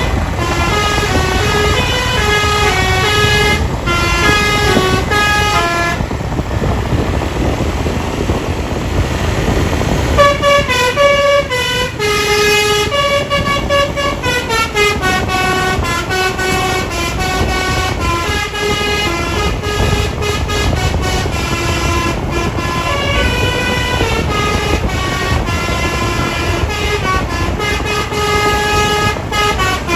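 Bus telolet horn playing a melody of stepped, held notes, several pitch changes a second. The tune breaks off for a few seconds about six seconds in, then starts again and runs on, over a steady low rumble.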